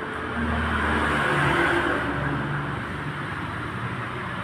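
A road vehicle passing by, its engine and tyre noise swelling to a peak about one and a half seconds in and then fading away.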